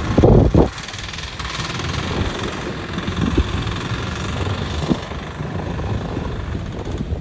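A fishing boat's engine running steadily under wind noise on the microphone, with a loud low buffeting in the first second.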